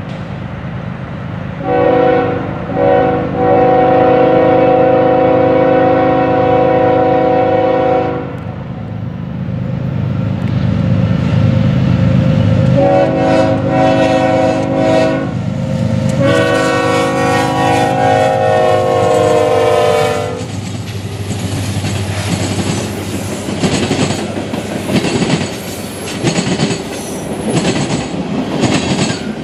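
CSX ES44AH locomotive's Nathan K5HLL five-chime air horn sounding three long blasts, the last one dropping slightly in pitch as it ends, with the diesel locomotives running between blasts. After the horn stops, freight car wheels clack steadily over the rail joints as the train rolls by.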